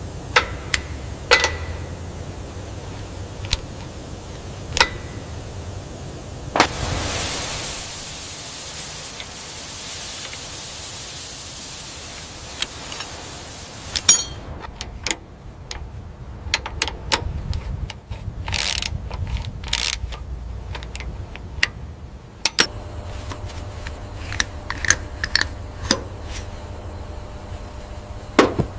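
Scattered sharp clicks and taps, with a steady hiss for several seconds in the middle, over a constant low hum.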